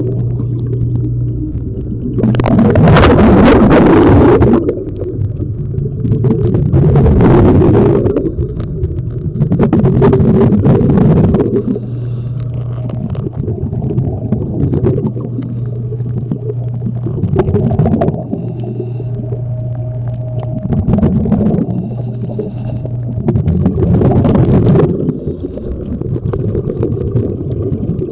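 Scuba diver's exhaled bubbles venting from the regulator, heard underwater as a noisy rush lasting a second or two and repeating every few seconds over a steady low hum.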